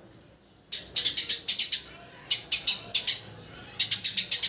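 Eurasian tree sparrow chirping: three bursts of quick, repeated chirps, each about a second long, with short pauses between.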